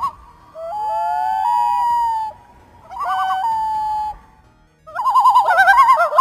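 Common loons calling. First come long wailing notes that glide up and down, at times two at once. About three seconds in comes a short quavering call, and near the end a louder tremolo of rapid wavering notes.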